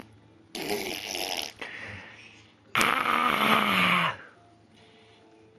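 Raspberries blown with buzzing lips, a baby and a man taking turns imitating each other. There is a shorter one about half a second in, then a louder, longer one about three seconds in that slides down in pitch.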